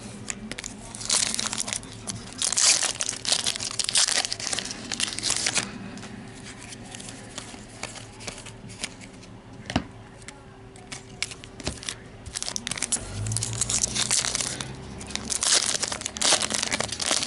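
Foil-lined Topps trading-card pack wrapper crinkling and tearing as it is handled and opened by hand. The rustling comes in two spells, in the first third and again near the end, with a couple of small clicks in between.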